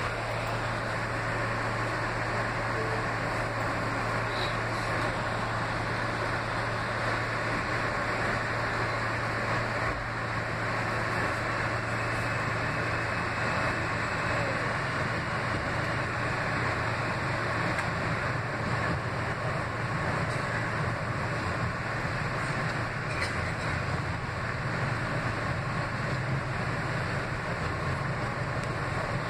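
Interior of a New York City R160B subway car with Alstom propulsion, running along the track: a steady rumble of wheels and running gear over a constant low hum, which fills out somewhat about halfway through.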